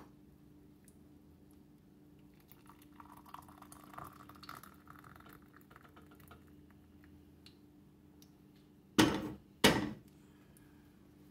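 Hot coffee poured from an enamel coffee pot into a ceramic mug: a soft trickle a few seconds in. Two loud knocks near the end, about a second apart, are the loudest sounds.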